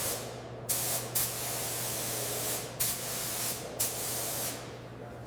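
Paint spray gun hissing as it sprays paint, with several louder surges as the trigger is pulled harder, over a steady low hum.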